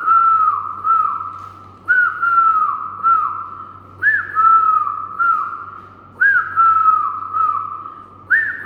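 A man whistling an imitation of a dove's call: a phrase of three notes, the first flicking up and the next ones drooping, repeated about every two seconds.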